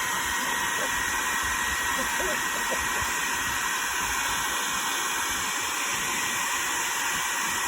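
An electric appliance running with a steady, even airy hiss and a faint thin whine.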